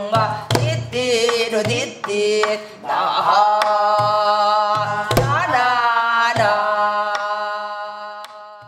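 A woman singing gugeum, wordless Korean vocal mouth music in a pansori-style voice, with sparse strokes on a buk barrel drum. In the second half she holds one long, wavering note that fades out near the end.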